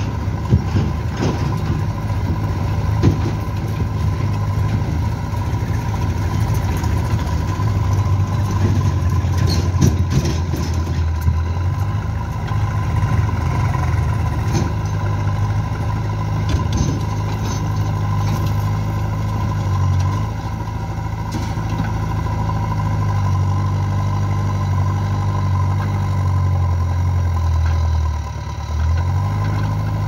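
Diesel engines of a JCB backhoe loader and tractors running steadily while the backhoe digs and loads soil into a tractor trailer, with knocks and clatter from the bucket and soil in the first ten seconds or so. The engine note drops briefly a couple of seconds before the end.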